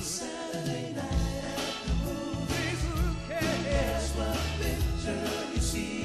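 Live soul music: a male lead singer's voice, wavering in pitch, over bass and drums keeping a steady beat.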